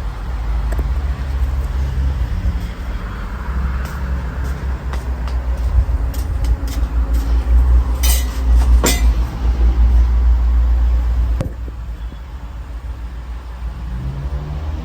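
Honda Civic engine running at idle, a steady low rumble close to the microphone, with a couple of sharp metallic clinks about eight and nine seconds in; the rumble drops noticeably a little past eleven seconds.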